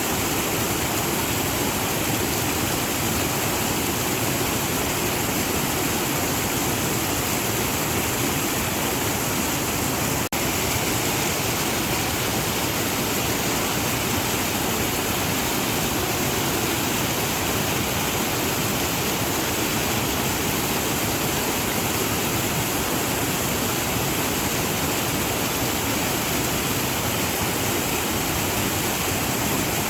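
Waterfall: water falling and splashing in a steady, even rush, with a momentary dip about ten seconds in.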